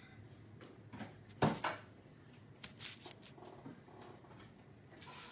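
Light kitchen clatter from a silicone basting brush and metal baking tray as baked pastries are brushed with olive oil: scattered soft clicks and knocks, the loudest two close together about a second and a half in.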